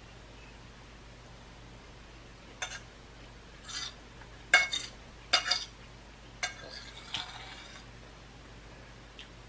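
Metal utensil clinking and scraping against a plate of food: a run of sharp clinks and short scrapes, loudest in the middle.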